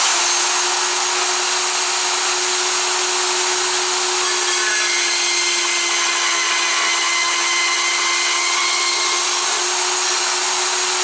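Band saw running steadily, its blade cutting through 11-gauge steel plate.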